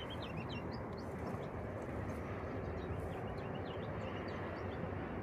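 Steady outdoor background noise with small birds chirping faintly and repeatedly over it.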